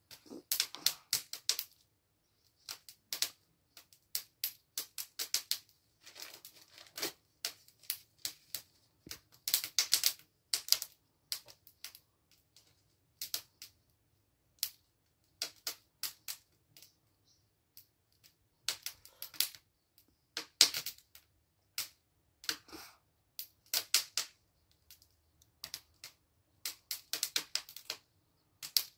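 Wood fire in a metal brazier crackling and popping: irregular sharp snaps, some single and some in quick clusters, as the freshly lit firewood burns up.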